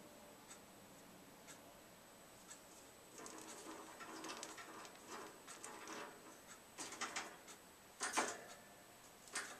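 Parrotlet clambering about its wire cage: scratchy rustling and clattering from about three seconds in, with the sharpest bursts near the end. It comes from a bird that cannot perch steadily and clings to the cage wires and toys instead. A faint tick comes about once a second behind it.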